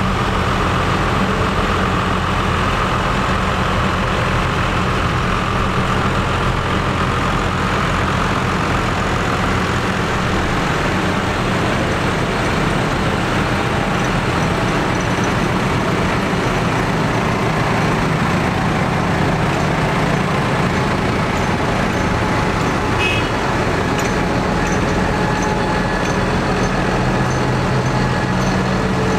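Tractor engines running steadily.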